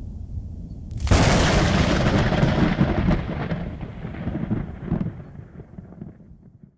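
Thunder: a low rumble, then a sharp crack about a second in that rolls on and fades away over the next few seconds.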